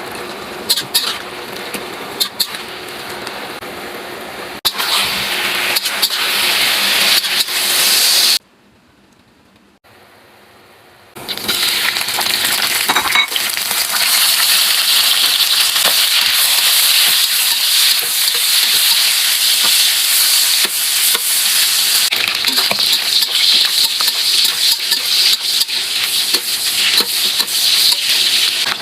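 Food sizzling as it is stir-fried in a hot pan, with clicks and scrapes from stirring. The sizzle drops away for a few seconds about eight seconds in, then comes back louder and steady.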